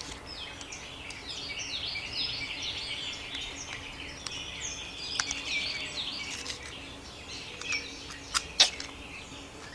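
Small birds chirping and twittering continuously, with a few sharp metallic clicks of bolts being handled at the engine block, the loudest two close together about eight and a half seconds in.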